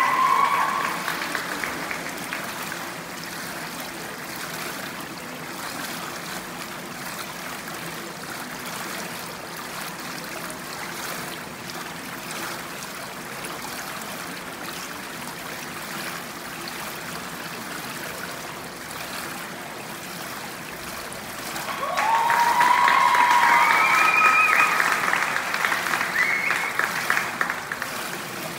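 Audience applause with whistles, dying down after the first second into a steady hiss in the pool hall, then a fresh round of clapping with several rising whistles about twenty-two seconds in that tapers off toward the end.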